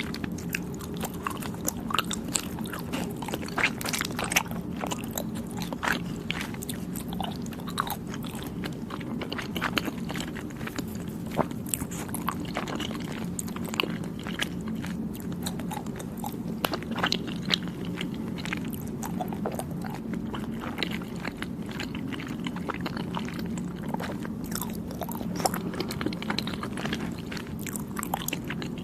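Close-miked chewing of soft, chewy Thai desserts, with many irregular small wet mouth clicks and smacks, over a steady low hum.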